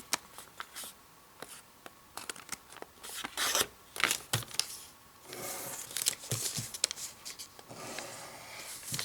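Sheet of paper being handled and creased by hand: scattered crisp crackles and rustles as the paper is folded and pressed flat, with a longer stretch of soft rustling in the second half.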